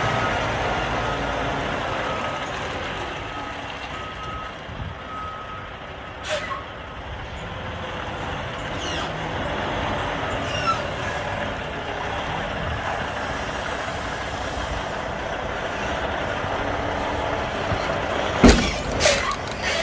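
Semi truck's diesel engine running as the tractor backs under a trailer to hook up, with two sharp knocks close together near the end.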